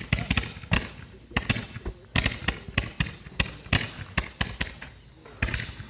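Fireworks going off: rapid, irregular sharp bangs and pops, several a second, easing briefly about five seconds in before picking up again.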